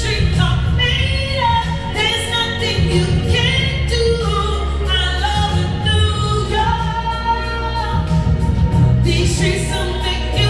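A woman singing, amplified through a microphone and a small floor speaker, over music with sustained low bass notes.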